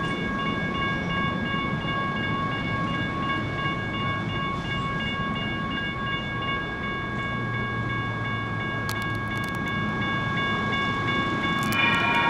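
Electronic railroad crossing bell (GS Type 1 e-bell) ringing steadily while a light rail train rumbles through the crossing. Near the end a second crossing bell at a different pitch joins in, with a few sharp metallic clicks from the train.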